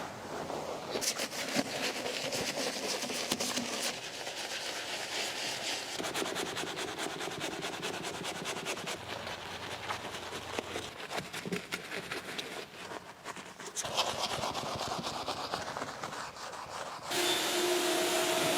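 Scrubbing and rubbing on a car's body during washing, in several short runs of scratchy friction with quick clicks. Near the end a steady machine hum takes over.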